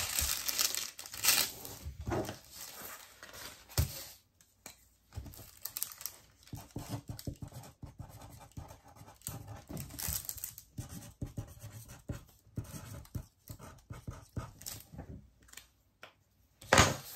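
Packaging rustling and crinkling in short, irregular bursts as a diamond-painting kit is handled and opened, with a sharper crackle near the end.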